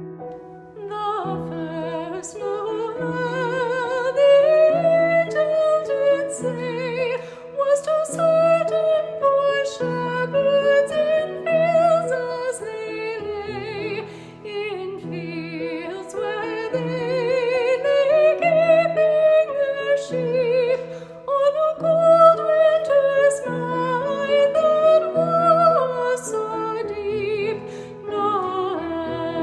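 A musical performance: a solo melody with wide vibrato carried over repeated piano chords.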